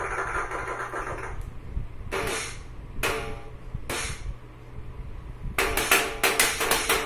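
Toy electronic drum kit struck with drumsticks: three separate hits, each with a short ringing drum tone, then a quick flurry of hits near the end. Music cuts out about a second in.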